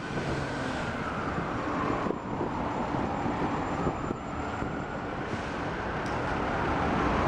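City street traffic noise, with a faint siren wailing slowly up and down through it.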